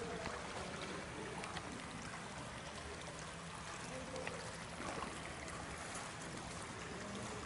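Water trickling and seeping across wet sand and mud, a steady wash of water noise.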